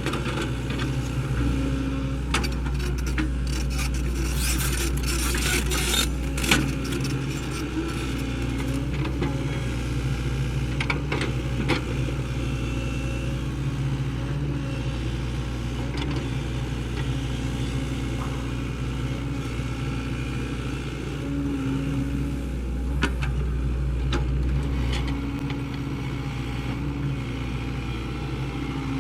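Sany SY75C excavator's diesel engine running steadily under work, its note rising and falling briefly as the hydraulics take load. Scattered knocks and scraping from the bucket and soil, the sharpest a few seconds in and again near the end.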